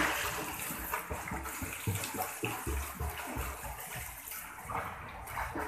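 A child swimming through a pool, arms and kicking legs splashing the water steadily; the splashing is loudest right at the start.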